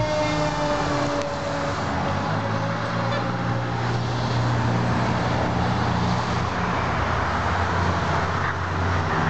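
Fire engine driving away, its engine running steadily under road noise, while a siren tone slowly falls in pitch and dies away within the first two seconds.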